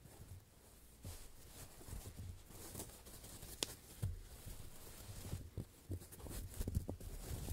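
Foam blocks being handled close to the microphones: irregular soft scratching, squishing and light taps, busier after about a second, with one sharper click a little past the middle.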